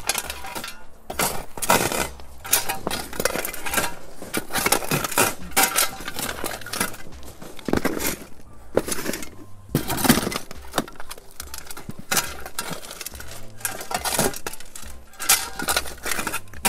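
A steel shovel scraping and clinking on a corrugated metal sheet as compost is slid back onto a wire-mesh sieve, in repeated, irregular strokes.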